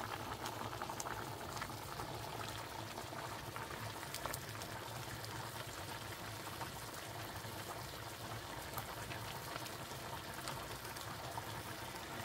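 Soaked waxy corn kernels boiling in water, a steady bubbling with many small pops, the open pot and pan being boiled hard to cook off excess water.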